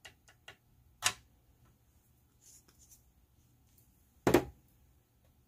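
Light clicks and taps of hands handling art supplies on a desk. There is a sharp tap about a second in, and a louder double knock a little after four seconds, as something is set down.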